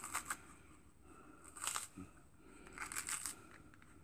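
Hands pulling apart a cut red ram's horn sweet pepper: the crisp flesh gives a few short, faint crackling, tearing sounds, near the start, in the middle and again about three seconds in.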